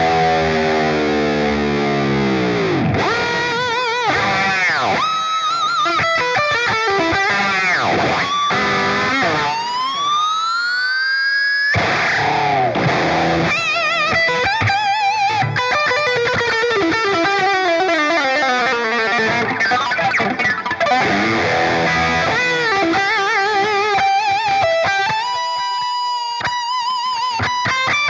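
Ibanez RG3250MZ electric guitar played with distortion through a Line 6 POD HD500X: lead lines with wide vibrato, several long pitch dives and a long rising swoop from its Edge Zero tremolo bar.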